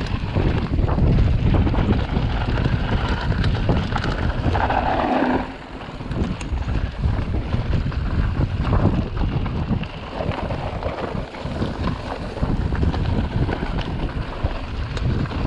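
Enduro mountain bike descending a dirt trail at speed: wind buffeting the microphone over the tyres' rumble and the frame's constant rattling and knocking, with a brief louder hiss about five seconds in.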